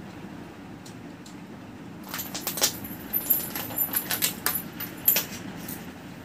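A kitten batting a small toy ball about on a concrete floor: a quick run of jingling and clicking taps from about two seconds in until about five seconds in.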